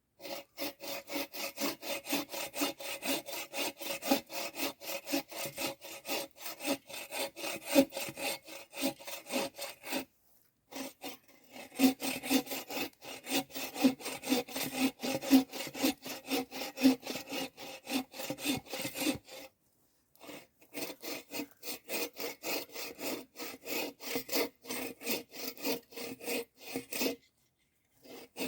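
Bow saw cutting through a firewood log: steady back-and-forth rasping strokes, about two a second, stopping briefly three times before starting again.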